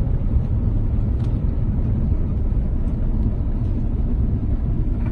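Steady low rumble inside the cabin of an Airbus A350-900 during its landing, with a few faint ticks.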